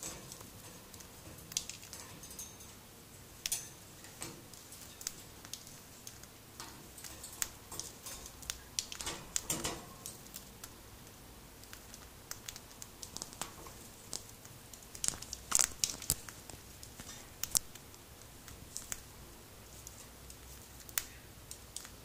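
Cockatiel pecking and husking seeds from a millet spray: irregular small crackles and clicks, with a denser run of crackling about halfway through and the sharpest clicks a little after.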